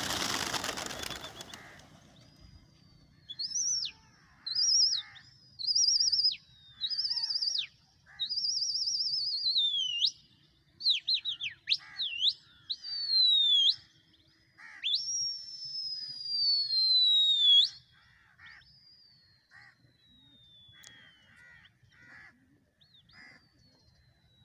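A flock of domestic pigeons takes off together in a burst of wing flapping. Then come a series of loud, high whistles: short phrases, a warbling trill and long falling glides, which stop a few seconds after the middle.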